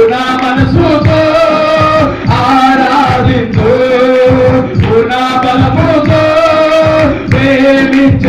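Men singing a Telugu Christian worship song through microphones, holding long notes over a rhythmic accompaniment with a steady beat.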